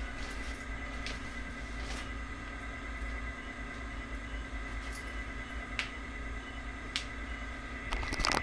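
A steady low hum with a few faint, scattered clicks, and a quick cluster of sharper knocks near the end.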